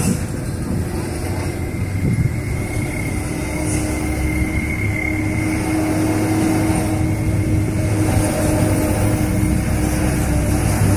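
Large trucks' diesel engines running at low speed as they work slowly through a tight bend, a steady low drone that grows louder near the end as a truck passes close by.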